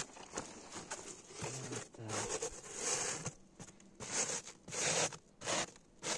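Insulation pad being laid onto a beehive's frames and pressed and smoothed by hand: a run of short rustling, brushing strokes of hand and pad against the fabric and the wooden hive box, most of them in the second half.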